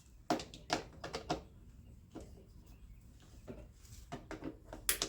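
A ratchet and metal mower parts being handled while bolts are undone: scattered light clicks and knocks at uneven intervals, the sharpest near the end.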